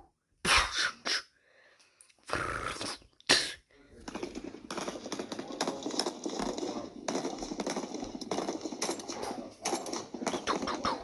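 Gunfire sound effects: a few short bursts, then from about four seconds in a dense, continuous crackle of rapid machine-gun fire.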